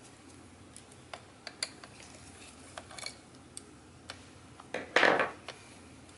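Light clicks and taps of small parts and tools being handled inside an opened laptop, then a short, louder metal clatter about five seconds in as a screwdriver is set down on a wooden table.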